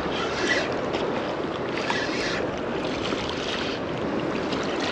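Choppy shallow seawater sloshing and lapping right at the microphone, with wind, the hiss swelling in surges about every second and a half.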